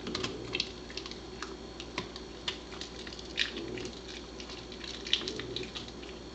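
Pembroke Welsh Corgi gnawing a buffalo rib bone: irregular crunches and wet clicks of teeth on bone and meat.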